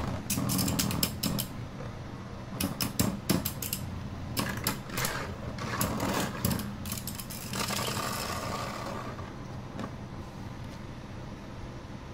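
Two Beyblade spinning tops, one a custom 3D-printed Aero Knight MS, battling in a clear plastic stadium: a sharp clack as the second top lands, then runs of rapid clicks and clacks as they hit each other and the stadium wall. After that comes a whirring scrape that fades out about nine seconds in.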